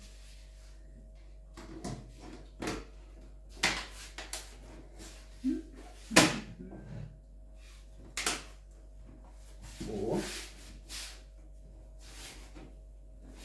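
Knocks, clicks and scrapes of parts and cables being handled and pushed into a PC case, irregular, with the sharpest knock about six seconds in.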